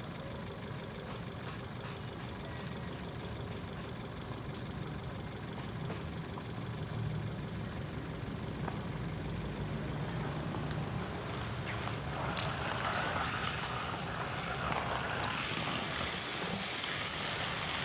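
Car engine idling steadily, a low even hum, with a rising hiss of noise joining it in the second half.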